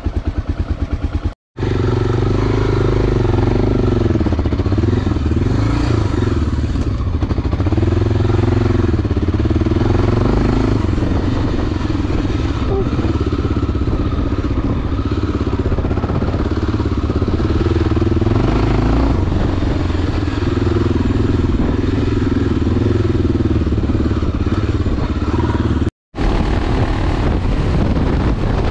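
Enduro motorcycle engine running while being ridden, its revs rising and falling continually with the throttle. The sound cuts out abruptly twice, a second or so in and near the end.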